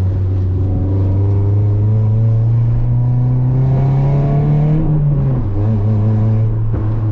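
Toyota Corolla's four-cylinder engine accelerating, its note rising steadily for about five seconds. It then drops as the driver lifts off for an upshift in the manual gearbox, and carries on at a steady, lower pitch.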